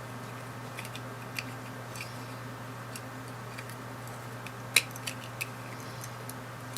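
Small plastic clicks and taps from handling a car key fob's case and its new rubber button pad, with a cluster of three sharper clicks about two-thirds of the way through, over a steady low hum.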